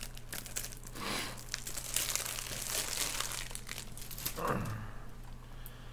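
Plastic packaging crinkling and crackling as Blu-ray cases and their wrapping are handled, strongest from about one to four seconds in.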